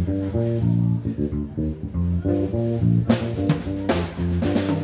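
Live band music: electric guitar and bass play a riff of held notes, and the drum kit comes in with cymbal and drum hits about three seconds in.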